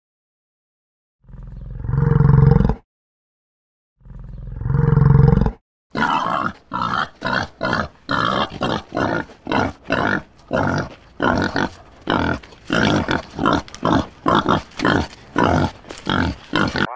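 Two long, low calls from a large bovine, about three seconds apart. Then, from about six seconds in, wild boars grunting in a steady run of short grunts, about two a second.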